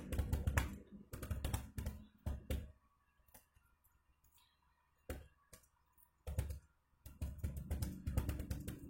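Fast touch-typing on an external computer keyboard: rapid runs of keystrokes. The typing thins to a few scattered clicks from about three seconds in, then picks up again to a rapid run near the end.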